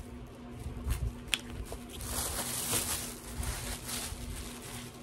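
Thin plastic shopping bags rustling and crinkling as they are handled, loudest from about two seconds in, with a sharp click a little over a second in.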